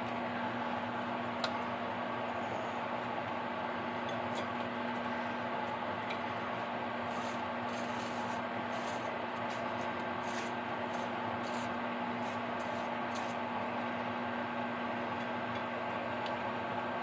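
Microwave oven running with a steady hum. In the middle, a run of short scrapes, like a knife spreading butter on toast.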